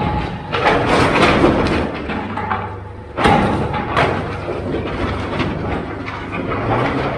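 Repeated bangs and thuds over a low, steady engine hum, with a sharp loud bang about three seconds in and another a second later.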